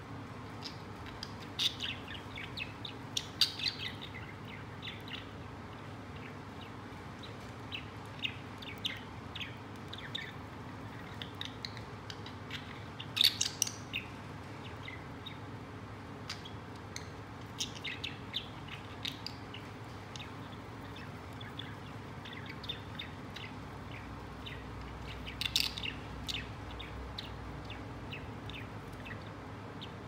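White budgie cracking and husking millet seeds from a millet spray: scattered short, sharp clicks in irregular clusters, with soft chirps at times. A steady low hum lies underneath.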